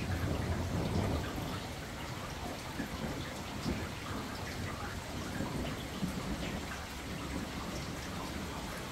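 Steady rain with distant rolling thunder, the low rumble strongest in the first second or two, and scattered drips ticking.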